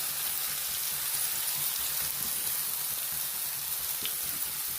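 Thinly sliced apple frying in hot oil with cumin, fennel seeds and grated ginger, sizzling steadily.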